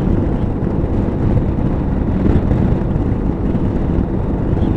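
Motorcycle cruising at about 80 km/h: a steady engine drone under a constant rush of wind and road noise.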